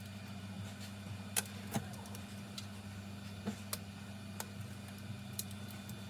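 Scattered small clicks and taps, about half a dozen at irregular times, from handling the phone and its newly fitted screen on the workbench, over a steady low electrical hum.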